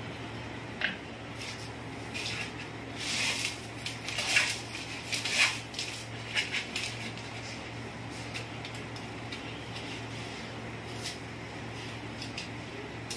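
Crushed dry Maggi noodles crackling and rustling as a potato patty is pressed and turned in them in a bowl, with light clicks of handling against dishes. The crunching is loudest about three to six seconds in, and a few more crackles follow. A low steady hum runs underneath.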